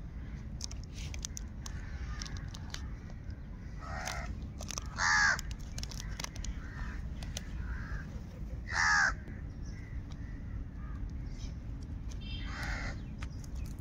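A crow cawing now and then, four short calls with the loudest two about five and nine seconds in. Light clicks and crinkles of plastic-wrapped packets being handled, over a steady low rumble.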